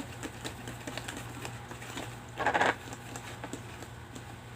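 Fork clicking and scraping against a bowl while stirring sticky glue mixture, in quick irregular small ticks. A short, louder hissing burst about halfway through.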